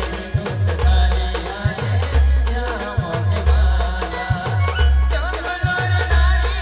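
Instrumental passage of an Adivasi band playing a devotional aarti song: a wavering melody over deep, booming bass drum hits in a steady repeating beat, with rattling percussion on top.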